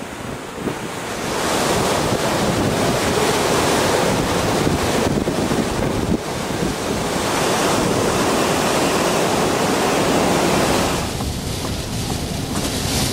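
Category 1 hurricane winds rushing and buffeting the microphone in long gusts, surging loud and easing off several times.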